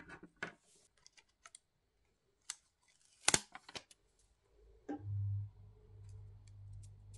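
Small plastic clicks and paper crinkling from handling a toy-egg capsule and peeling a sticker off its backing sheet, loudest about three seconds in. From about five seconds a low steady hum sets in.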